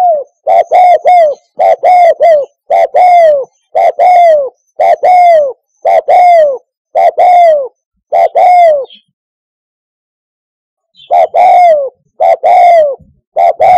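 Spotted dove cooing: a steady series of repeated cooing phrases, each note falling in pitch, about one a second. It pauses for about two seconds, then resumes with three more phrases near the end.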